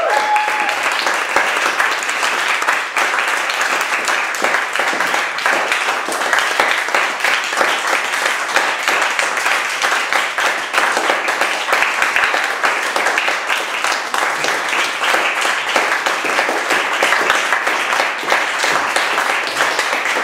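Audience applauding: dense, steady clapping from a room full of listeners.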